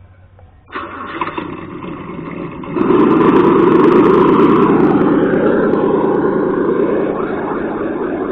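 Traxxas Summit RC monster truck's GoolRC 3674 brushless motor and drivetrain running under throttle. It starts suddenly about a second in, gets louder at about three seconds, then rises and falls as the truck pulls away.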